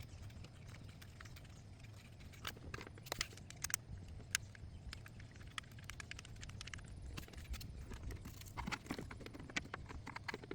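Scattered clicks and light metallic knocks as tools and engine parts are handled while new VVT solenoids are fitted, over a steady low hum.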